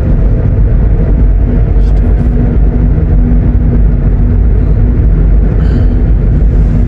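Steady low rumble of a car driving along a paved road, heard from inside the cabin: engine and tyre noise with a faint steady hum.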